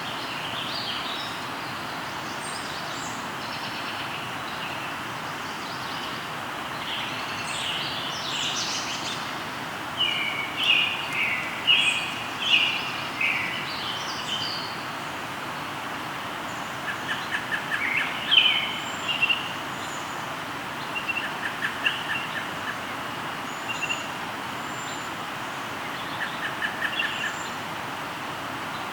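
Birds singing over the steady rush of a flowing river. Phrases of song come in clusters, busiest about a third of the way in, with short rapid trills repeating in the second half.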